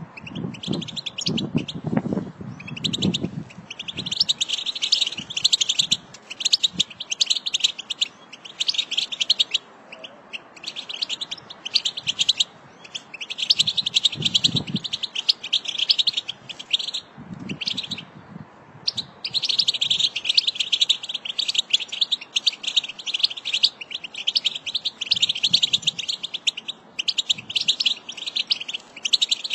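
American goldfinch singing: long runs of rapid, high twittering notes in phrases several seconds long, broken by short pauses. A few fainter low sounds lie beneath it in the first few seconds and again about halfway through.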